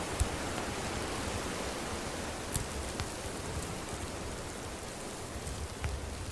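Wood campfire burning with a steady hiss, broken by a few sharp crackles and pops, the loudest about two and a half seconds in.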